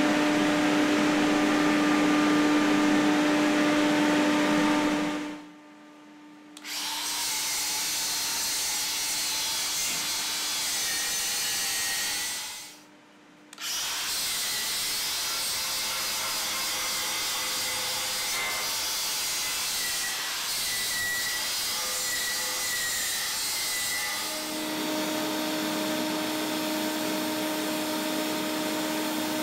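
Cordless angle grinder with a flap disc dressing welded 316 stainless steel sheet, running in three spells with two short breaks, its pitch wavering under load in the middle spell. For the last few seconds a steady hum takes over.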